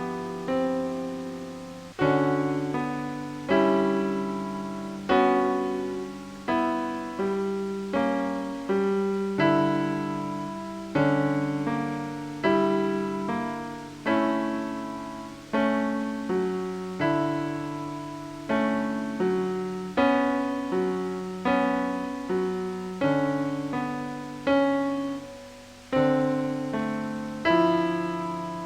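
Slow ambient piano music: notes and chords struck every second or so, each left to ring and fade before the next.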